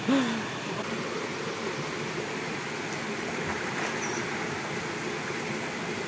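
Steady rushing of a small waterfall cascading over rocks into a pool, with a short vocal exclamation at the very start.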